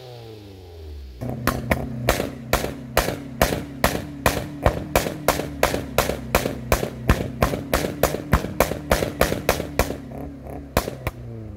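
A car engine held at a homemade spark-cut rev limiter, the exhaust banging about four times a second over a steady engine note. Unburnt fuel passes into the exhaust and a spark plug fitted at the muffler ignites it. The revs fall before the bangs start, and the bangs stop near the end.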